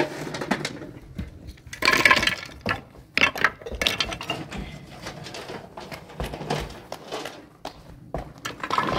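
Irregular clatter of stones and hollow concrete blocks knocking and scraping as a block wall is built, with a louder scraping rush about two seconds in.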